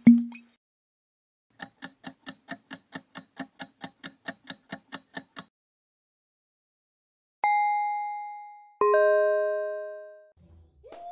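Quiz sound effects: a deep thud, then a countdown clock ticking evenly about four times a second for about four seconds. After a pause comes a two-note ding-dong chime, the second note lower, marking the answer reveal.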